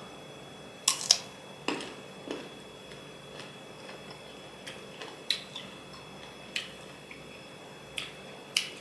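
Close-up crunching of a crisp green Keo mango slice: a loud bite about a second in, then scattered crisp chewing crunches.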